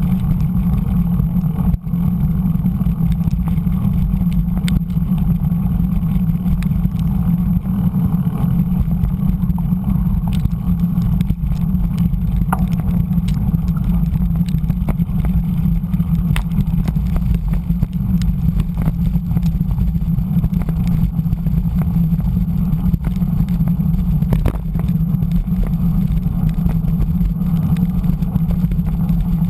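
Steady low rumble of a mountain bike rolling fast over a wet gravel dirt road, the tyre noise and frame vibration picked up through a bike-mounted GoPro, with scattered small clicks of grit and stones.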